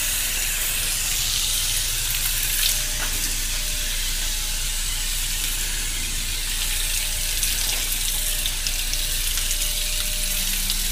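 Garden hose spray nozzle running: a steady hiss of water spraying onto the back of a car and the concrete beneath it.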